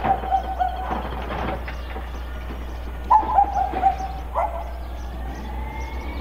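A bird calls twice, each call a short run of chattering notes that falls slightly in pitch, over a steady low rumble. A few knocks come in the first second or so, and a faint rising whine begins near the end.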